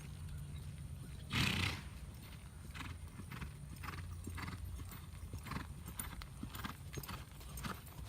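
Hoofbeats of a horse loping, short knocks in quick, uneven groups, with a loud breathy rush about one and a half seconds in.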